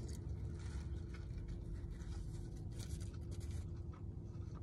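Soft mouth-closed chewing of a burger, with faint scratches and clicks from the paper napkin held around it, over a steady low hum.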